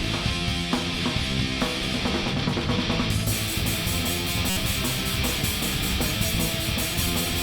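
Live rock band playing an instrumental passage with electric guitar, bass and drum kit. A fast, even cymbal beat comes in about three seconds in.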